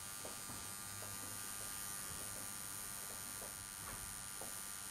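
Semi-permanent makeup machine running with a steady, low electric hum as it works the eyeliner.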